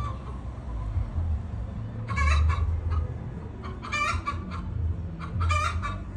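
Chickens clucking, with louder clusters of calls about two, four and five and a half seconds in.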